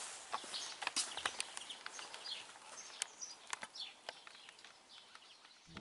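Small birds chirping and calling, many short chirps over each other, with scattered sharp clicks.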